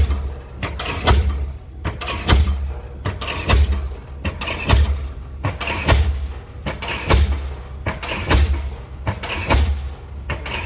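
Diesel pile hammer driving a pile, striking steadily about once every 1.2 seconds, each blow a sharp knock with a deep low tail.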